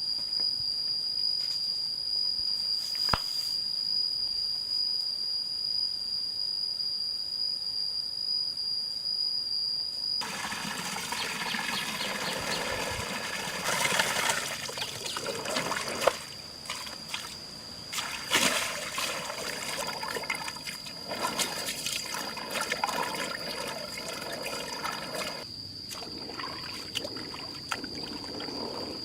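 A steady high-pitched insect drone. About a third of the way in, water starts trickling and splashing with scattered clicks, and it keeps on to the end.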